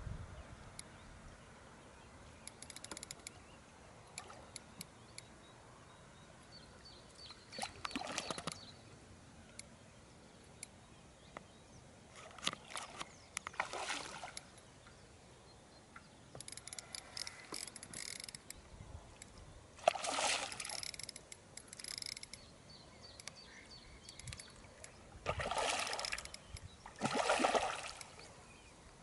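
Carp splashing at the pond surface close to the bank while feeding at a floating bait: a series of short splashes every few seconds, the loudest near the end.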